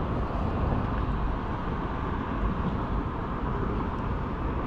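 Steady outdoor background noise: a constant low rumble with a hiss above it, with no distinct events.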